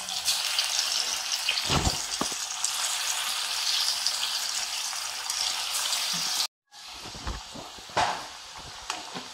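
Pieces of coriander vadi frying in hot oil in an aluminium kadhai, with a loud, dense sizzle as they go into the oil. The sizzle stops abruptly for a moment about six and a half seconds in, then goes on quieter with a few short knocks.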